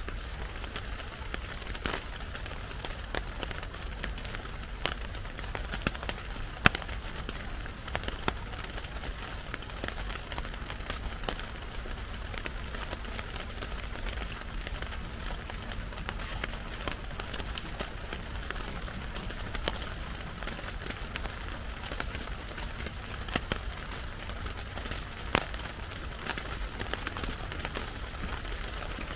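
Steady rain with many irregular sharp taps of drops striking plastic sheeting.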